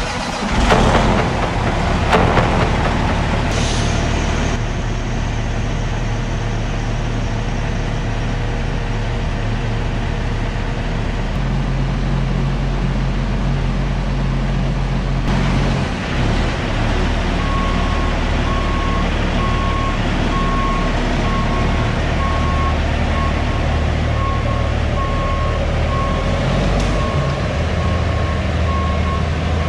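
Heavy diesel truck engine running loud with no mufflers, and from about halfway through a reversing alarm beeping steadily as the truck backs up.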